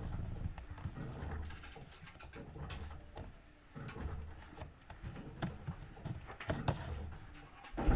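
Washing machine running: a low motor hum that swells and fades about once a second, with irregular knocks and clicks throughout.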